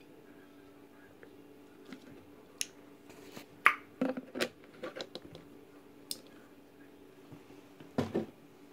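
Handling noise: a few sharp clicks and knocks as a plastic drink bottle and the phone are moved, the loudest a little under four seconds in, over a faint steady hum.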